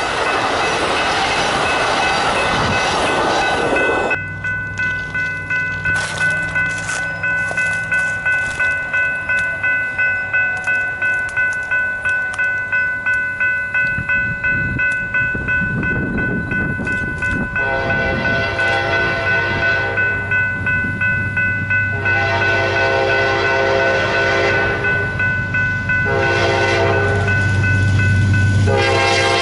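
Amtrak Superliner cars rumbling past for about four seconds. Then a railroad crossing bell dings about twice a second while an approaching Amtrak passenger train's engine grows louder and its horn sounds the grade-crossing signal: two long blasts, a short one, and a long one starting near the end.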